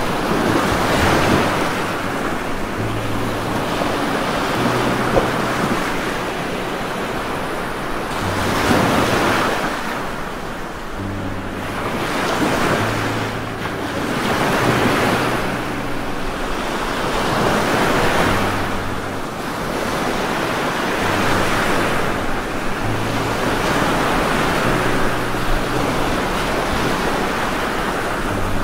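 Rain hissing steadily, the noise swelling and easing every few seconds.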